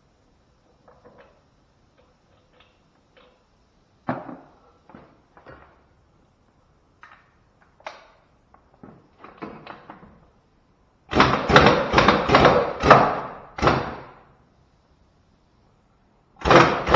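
Sharp metal knocks and clanks at a truck's Dayton spoke front wheel as its clamp nuts are worked loose. Light scattered taps come first, then a dense string of loud strikes about eleven seconds in and another starting near the end.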